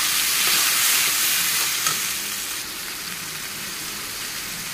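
Chopped onion and masala paste sizzling in hot oil in a kadai, stirred with a metal spatula. The sizzle is loudest for the first two and a half seconds, then settles lower.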